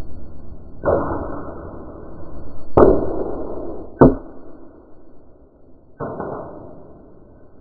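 Four sharp knocks or bangs, spread roughly two seconds apart. Each has a short fading tail and all sound muffled; the one about four seconds in is the loudest.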